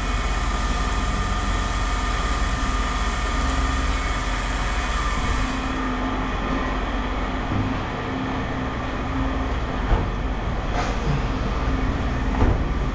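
A steady low mechanical rumble with a constant hum, broken by two sharp knocks, one about ten seconds in and one near the end.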